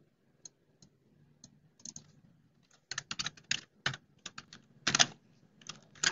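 Typing on a computer keyboard: a quick run of keystrokes, with a few scattered single clicks before and after.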